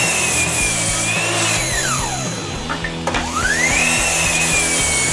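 Metabo KGS18 LTX 216 18 V cordless miter saw cutting a 2x4, twice: the motor whine winds down about two seconds in, then spins back up about three seconds in for the next cut. Background music plays underneath.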